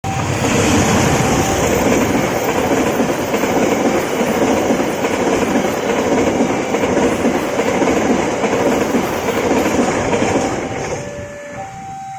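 A train passing close by: a loud, steady rumble and rattle of wheels on the rails that starts suddenly and eases off near the end. As it fades, a steady alternating two-note warning tone comes through.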